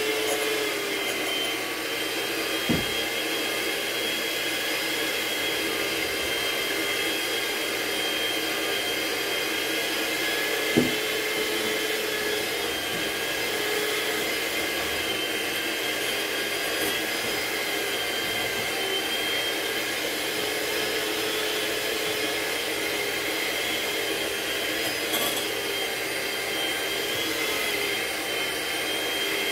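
Electric mixer running at a steady speed, beating softened cream cheese. Two brief knocks stand out, one a few seconds in and a louder one about eleven seconds in.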